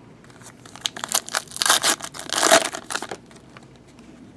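Foil wrapper of a 2014 Prizm soccer card pack being torn open and crinkled by hand: a run of crackling rips from about a second in to about three seconds in.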